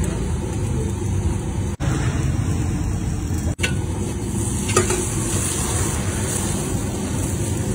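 Kulchas sizzling on a large flat griddle, over a steady low rumble of street noise. The sound cuts out briefly twice, about two and three and a half seconds in.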